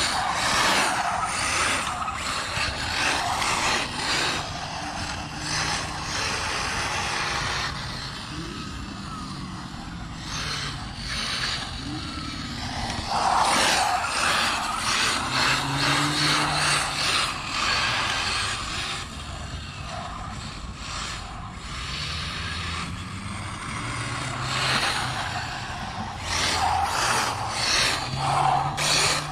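1/8-scale RC buggy's 1900 kV brushless motor on 4S being driven hard on concrete: a motor whine that rises and falls with throttle over the rush of tyres on the pavement, with repeated sharp surges as it accelerates.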